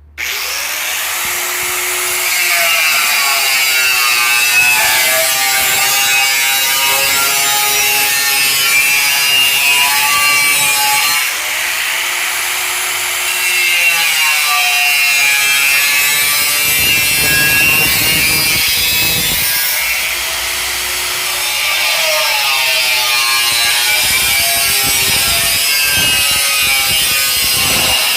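Power cutting tool, most likely an angle grinder with a cutting disc, cutting a slot into a rectangular metal tube. Its whine repeatedly drops in pitch and climbs back as the disc bites into the metal and eases off, with short lulls about eleven and twenty seconds in.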